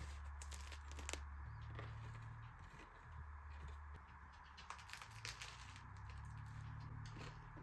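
Faint crackling crunches of a crusty sourdough loaf being bitten and chewed, scattered irregularly over a low steady hum.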